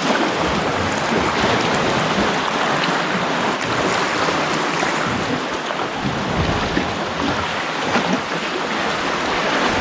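Sea water washing and sloshing around an inflatable kayak rising and falling on a swell, a steady rush of water noise.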